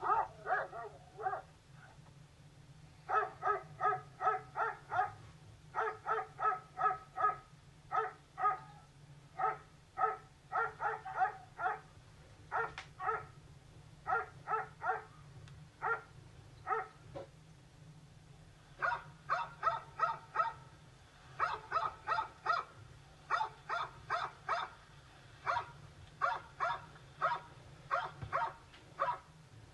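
Dog barking over and over in quick runs of several barks, with short pauses between the runs.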